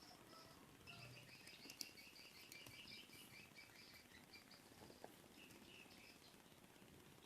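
Faint bird chirping: a quick run of short, high notes from about a second in, with a few more near the end.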